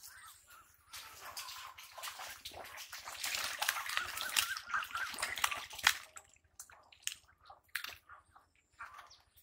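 Ducks splashing and paddling in shallow muddy ditch water, a busy splashing that builds and is loudest through the middle. It thins near the end to scattered taps and wing flaps.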